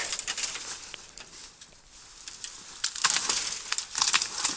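Dry leaves and twigs crunching and rustling, with a sharp knock at the very start and heavier bursts of crackling rustle from about three seconds in.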